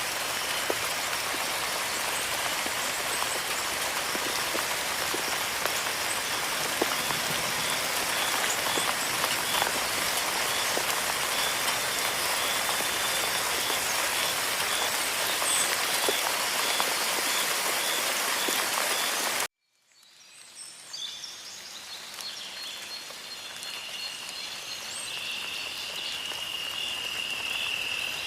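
Steady rain falling on surfaces, with a faint chirp repeating about twice a second behind it. About twenty seconds in it cuts off abruptly to silence, and a quieter ambience fades in with a high, steady insect trill that grows louder near the end.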